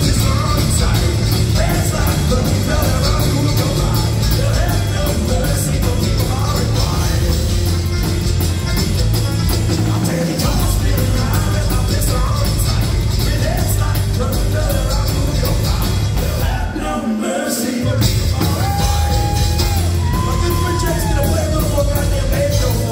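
Live thrash grass band, a mix of thrash metal and bluegrass, playing loud with bass, acoustic-electric and electric guitars, drums and sung vocals. About three-quarters of the way through the low end drops out for about a second, then the full band comes back in under long held sung notes.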